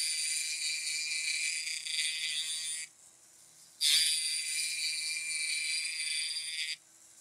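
Checkering tool cutting fine diamond lines into a Winchester Model 71's wooden stock: a steady high hiss in strokes of about three seconds each. It breaks off about three seconds in, resumes a second later, and stops near the end.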